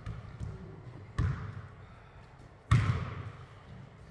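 Basketball bouncing on a hardwood gym floor: two slow bounces about a second and a half apart, the second louder, each echoing briefly in the hall.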